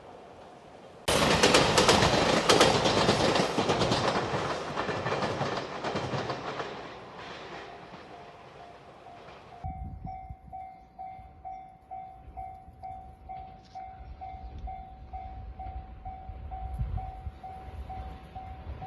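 A JR Shikoku 8000 series Shiokaze limited express electric train passes close by a level crossing. The loud noise of the cars rushing and clattering starts suddenly about a second in and fades over several seconds. About halfway, the level-crossing warning bell takes over, ringing in steady pulses over a low train rumble.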